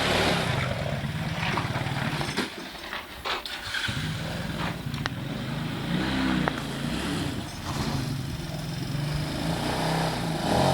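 ATV engine running at low revs. It falls away for about a second and a half a couple of seconds in, with a few sharp clicks, then picks up again with a brief rev about six seconds in.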